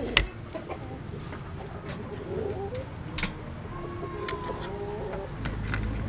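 Chickens clucking in the background, with short wavering calls. A sharp knock comes right at the start, and a few faint clicks follow.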